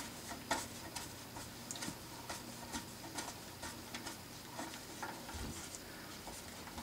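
Faint, light clicks as a small screw is handled and set into a plastic model-car roof frame, about two a second, with a soft low bump about five seconds in.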